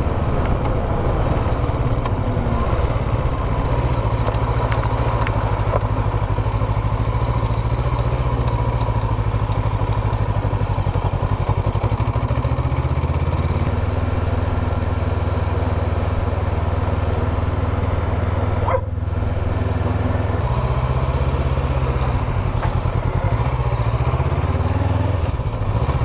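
Honda CB500X's parallel-twin engine running under way at road speed. Its note shifts about halfway through and again near three-quarters of the way through, with a brief dip in sound just before the second shift.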